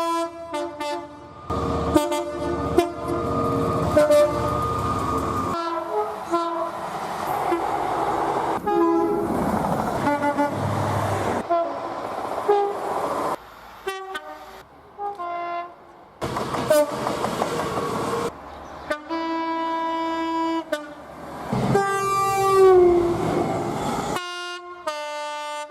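A rapid string of train horn blasts cut one after another, each a sustained chord of several notes, with horns of different pitch and length. Some clips carry the rumble of a passing train under or between the blasts, and near the end one horn slides down in pitch.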